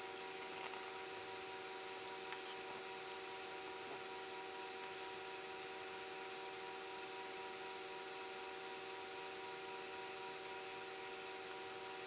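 Steady faint hiss with a constant hum of several steady tones and a couple of tiny ticks: room tone.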